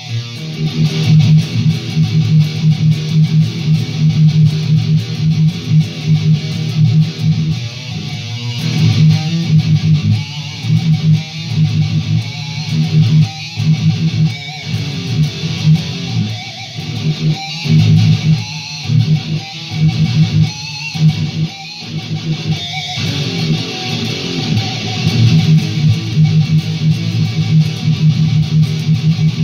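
ESP LTD Viper electric guitar with a Seymour Duncan Mayhem pickup set, playing riffs without a break. Through the middle the riff turns choppy, with short stops between chords, then runs on continuously again.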